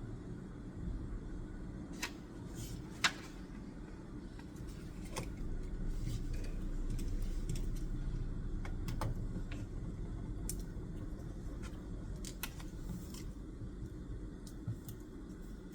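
Scattered sharp clicks and taps of desk study work (pen, paper and stationery handling), every second or few, the loudest about three seconds in, over a steady low room hum.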